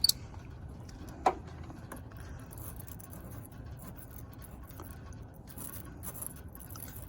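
Battery terminal cleaner brush scraping and rubbing inside a corroded battery cable terminal, in short scratchy strokes, with a couple of sharp metal clicks near the start.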